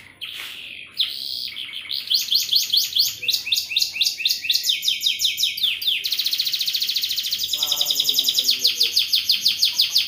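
Domestic canary singing in fast, high-pitched rolling trills, the notes repeating many times a second. There is a short break just after the start, and the roll speeds up about halfway through.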